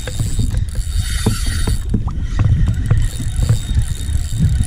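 Light knocks and clicks of gear being handled on a fishing kayak, over a steady low rumble.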